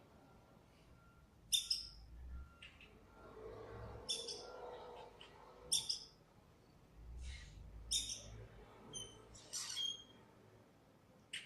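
A black bird calling: a series of short, high calls, about one every second or two, some with a brief whistled note.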